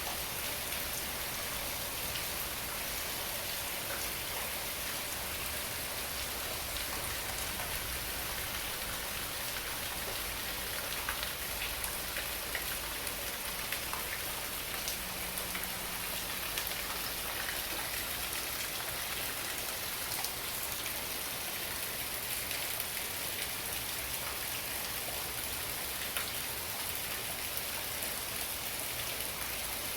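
Heavy tropical-storm rain falling steadily and pattering on surfaces, with scattered drips.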